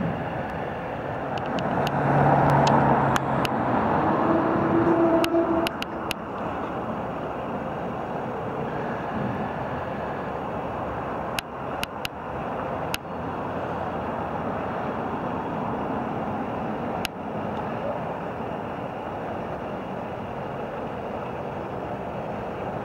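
Articulated lorry's diesel engine running at low speed as the lorry manoeuvres slowly through a tight junction, with steady street traffic noise; the engine is louder a few seconds in. Sharp clicks several times.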